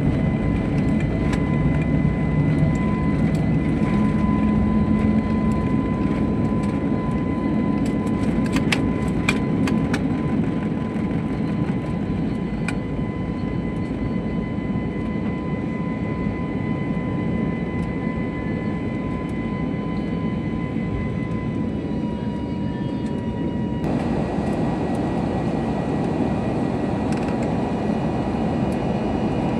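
Jet airliner engines heard from inside the cabin: a steady roar with a high engine whine that shifts in pitch about two-thirds of the way through. A few sharp clicks come around nine seconds in.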